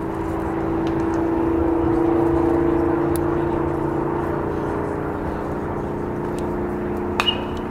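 A steady machine drone with a low hum, growing a little louder for a couple of seconds before settling. Near the end a sharp double pop, a pitched baseball smacking into the catcher's mitt.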